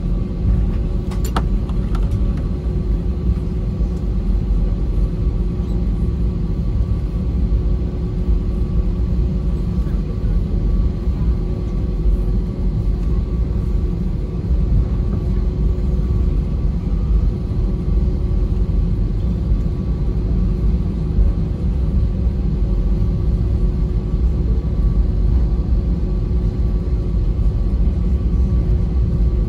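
Cabin noise of an Airbus A320neo taxiing: a steady low rumble with an even engine hum from its Pratt & Whitney PW1100G geared turbofans at taxi power.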